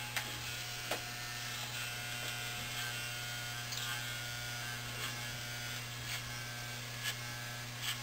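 Corded electric hair clippers buzzing steadily while trimming along the hairline edges.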